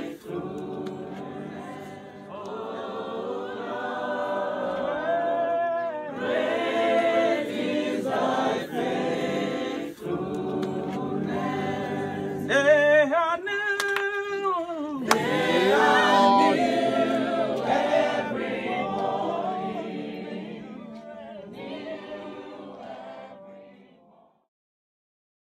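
A choir of men and women singing unaccompanied in parts, in long sung phrases. About halfway through a single voice stands out for a couple of seconds with a strong vibrato, and the singing fades out shortly before the end.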